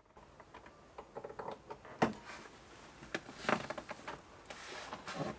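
Handling noises of a hinged wooden table folded up against the van's wall, with its cord and carabiner being fastened to a ceiling hook: scattered sharp clicks and knocks, the loudest about two seconds in, then rustling near the end.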